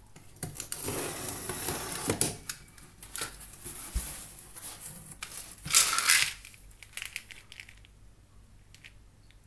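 Box-cutter blade slicing through packing tape on a cardboard box, a scraping rustle with clicks. Then cardboard flaps are pulled open and bubble wrap crinkles as a plastic bottle is lifted out, loudest about six seconds in, going quiet near the end.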